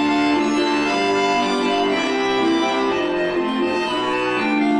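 Accordion playing a folk-dance tune as live accompaniment to ballet-barre exercises, in steady sustained chords.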